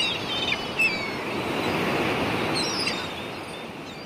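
Steady rush of ocean surf with a few birds chirping over it, about a second in and again near three seconds. The surf fades toward the end.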